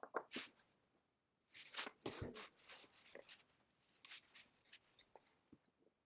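Small brass blower parts being handled and fitted together by hand: scattered light clicks, taps and rubbing of metal pieces, with a busier cluster of handling noise about two seconds in.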